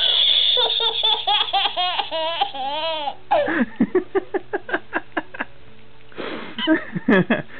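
A small child laughing hard: a long, high-pitched peal of laughter, then a string of short, breathy laughing bursts from about three seconds in, with a brief pause before a few more near the end.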